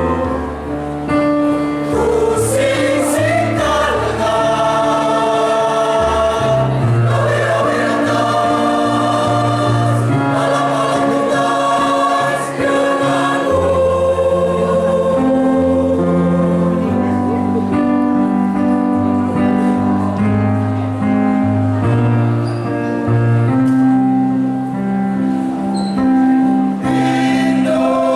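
A choir singing a song in held, sustained notes over instrumental accompaniment.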